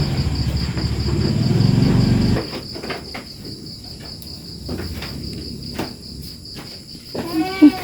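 Crickets chirping steadily in a high, pulsing trill. A loud low rumble fills the first two seconds and stops abruptly, followed by scattered light knocks, and a short bleat from a goat kid comes near the end.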